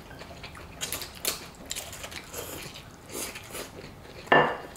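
Chewing and eating noises of people eating stir-fried noodles with chopsticks, with small scattered clicks, and one brief louder sound near the end.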